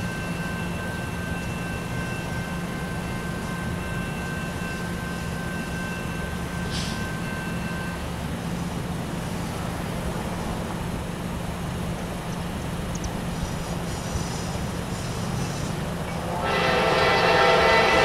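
Diesel locomotives of a heavy freight train, led by a CSX SD40-3, running with a steady low drone as the train approaches. About sixteen and a half seconds in the locomotive's air horn starts to sound loudly.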